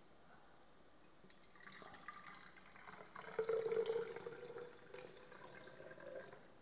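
Water poured from a jug into a tall graduated mixing cylinder, a steady trickle that starts about a second in and stops near the end.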